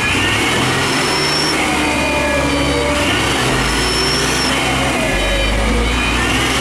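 Hino dump truck's diesel engine running hard at high revs under heavy load as the truck labours in deep mud, with a high whine over the engine.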